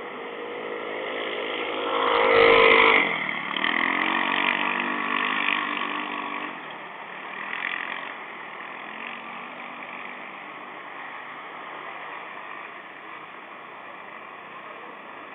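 A motor vehicle driving past. Its engine note grows louder as it approaches, is loudest about three seconds in, then drops in pitch and fades as it moves away, leaving a steady hum of distant traffic.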